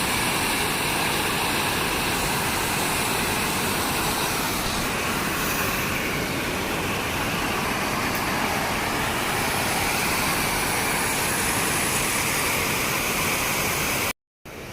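Heavy floodwater rushing over an overflowing dam, a loud steady wash of noise that cuts off abruptly near the end.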